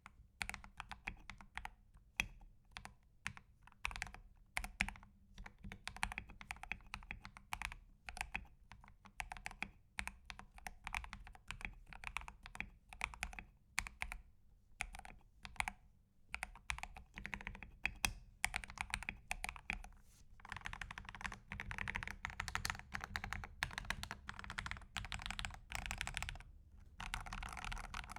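Typing on a custom mechanical keyboard built to work submerged in water: a steady stream of key clicks, faster and nearly continuous from about twenty seconds in, with a brief pause near the end.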